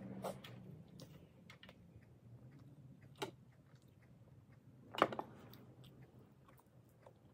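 Close-up eating sounds: soft chewing and small clicks of fingers working rice on a plate, over a faint steady hum. Two sharper knocks, the louder about five seconds in as a cup is set back down on the table.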